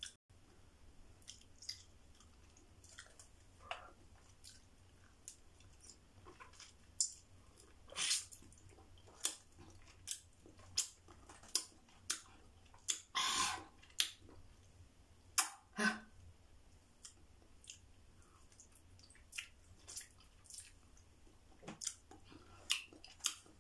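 A person chewing raw vegetables, with scattered crisp crunches and wet mouth clicks and a few louder crunches partway through.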